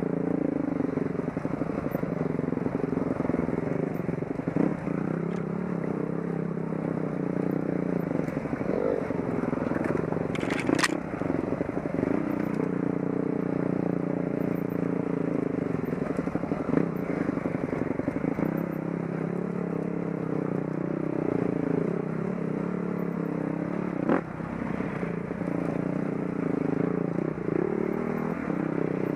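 Enduro dirt bike engine running at low revs, its pitch rising and falling with the throttle as the bike picks its way over rough ground. Occasional knocks and clatter, the sharpest about ten seconds in.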